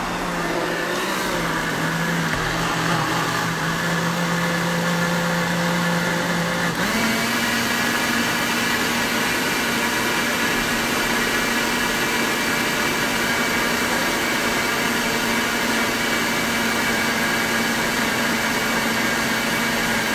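Countertop blender motor running steadily while blending a thick liquid pizza batter of eggs, milk, oil and flour. Its pitch dips slightly after about a second, then steps up higher about seven seconds in.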